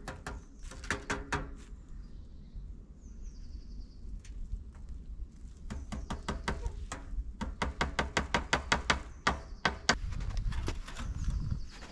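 Plastic stretch film crackling as it is pulled off the roll and wound tight around the wooden poles of a tipi frame, with a quick run of crackles in the second half.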